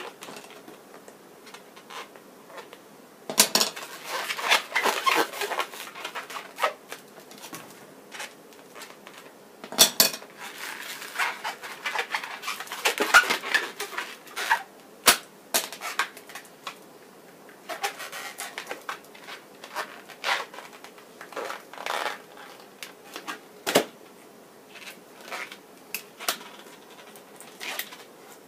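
Latex modelling balloons rubbing and squeaking under the fingers as they are twisted and tied by hand, in irregular spells with sharp snaps and clicks.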